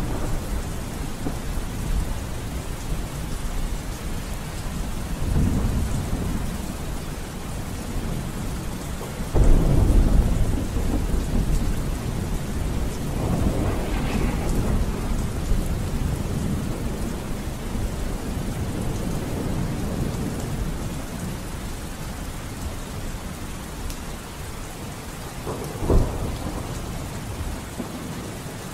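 Steady rain with rolling thunder: a loud thunderclap about nine seconds in, more rumbles after it, and a short sharp crack near the end.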